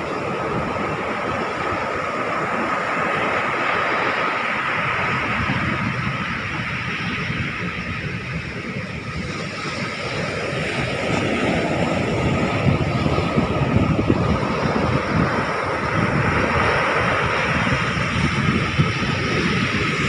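A steady rushing roar with wind buffeting the microphone and a faint steady hum.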